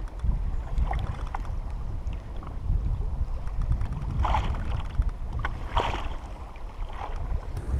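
Wind rumbling on the microphone and water lapping against a kayak's hull on choppy sea, with a couple of short splashes about four and six seconds in.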